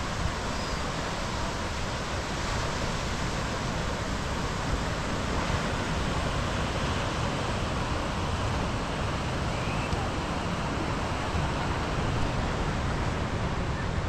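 Steady wash of ocean surf breaking on a sandy beach, mixed with wind rumbling on the microphone.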